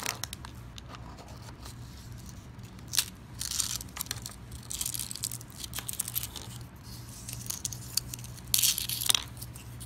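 Clear plastic fortune-cookie wrapper crinkling and tearing open, then the crisp fortune cookie cracking and crunching as it is snapped apart by hand. The loudest crackle comes near the end.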